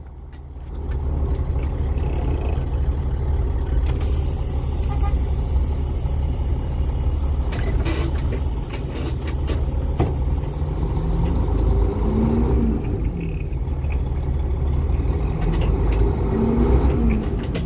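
Diesel engine of a 2007 Freightliner Columbia semi truck idling steadily, heard from inside the cab. A steady high hiss comes in about four seconds in, with a few light clicks.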